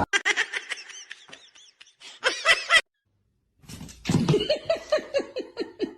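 A person laughing in two bouts: first a high-pitched giggling run, then, after a short pause, a string of short 'ha' pulses falling in pitch at about four a second.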